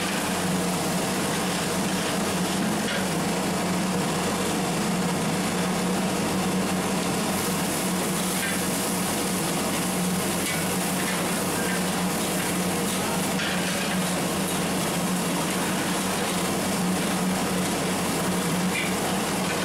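Sliced onions sizzling in hot oil in a large metal pot, stirred with a long metal ladle, over a steady low hum.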